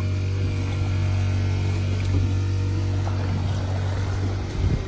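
Boat motor idling with a low, steady hum.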